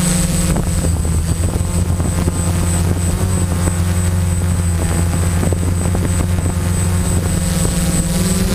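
Quadcopter's electric motors and propellers buzzing steadily, heard close up from the GoPro mounted on the drone. The hum shifts in pitch a little near the end as the drone changes speed.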